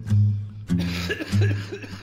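Instrumental music between sung lines: a bass line and plucked guitar, with no singing.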